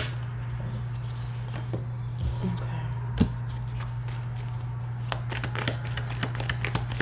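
A deck of tarot cards shuffled by hand, the card edges riffling and clicking in uneven bursts, with one sharper snap about three seconds in and busier shuffling near the end. A steady low hum runs underneath.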